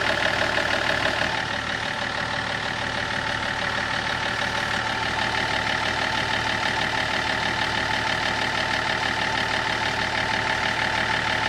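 Car engine idling with a quick, even knock, the strange knock that the owner locates between the engine and the automatic gearbox. The sound eases slightly about a second and a half in, then runs steadily.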